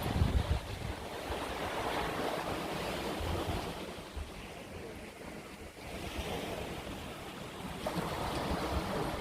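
Strong wind buffeting the microphone in gusts, over the rushing of sea surf.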